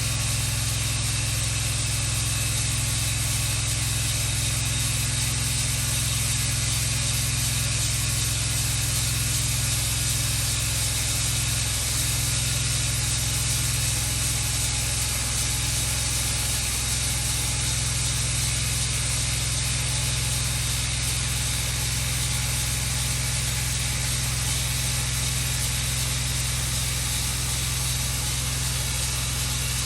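Large band sawmill running steadily: its engine drones at a constant speed under the hiss of the band blade.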